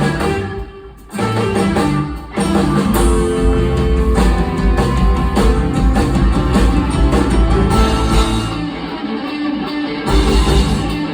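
Live rock band playing, with electric guitar to the fore. The band drops out for a moment about half a second in, then comes straight back in at full volume.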